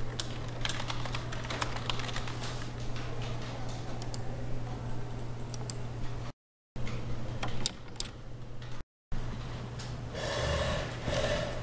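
Typing on a computer keyboard: a quick, uneven run of key clicks over a steady low hum. After two brief cuts to silence come a few single clicks from a computer mouse.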